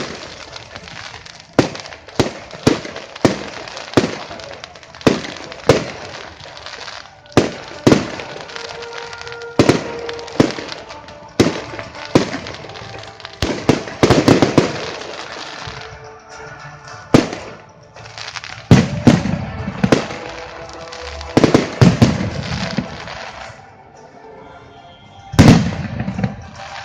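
Fireworks display: aerial shells bursting one after another in sharp bangs at irregular intervals, some with a crackling tail, and deeper, heavier booms near the end.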